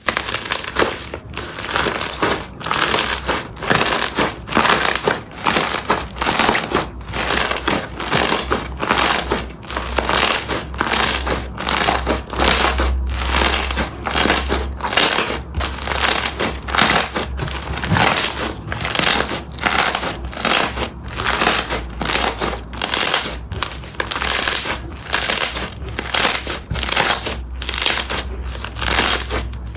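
Crunchy slime being squeezed and pressed by hand, crackling and crunching in a steady rhythm of about one and a half strokes a second.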